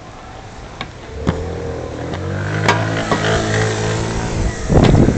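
A motor vehicle's engine runs nearby, growing louder from about a second in, with a few sharp clicks over it. Near the end a loud rough rumble takes over.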